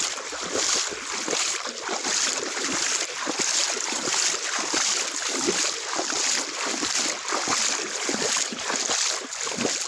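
River water splashing and rushing in uneven surges, with some wind on the microphone.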